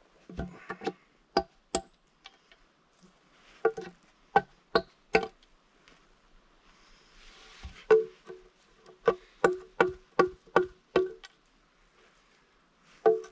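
Hammer driving nails into a wooden plank: sharp, ringing blows in short runs, with a quicker run of about eight strikes near the middle.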